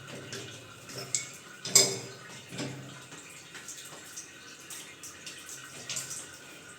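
Scattered light knocks and clicks of a metal wall mixer being worked onto its wall fittings, the sharpest a little under two seconds in, over a faint steady hiss. The fittings are spaced 7 inches apart instead of 6, which makes the mixer hard to seat.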